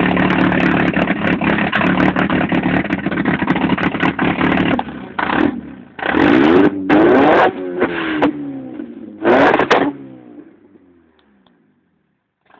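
A rough, clattery engine running steadily, then revved in a series of short blips about five, six, eight and nine seconds in, its pitch sliding back down after each. After the last blip it winds down and dies away to silence.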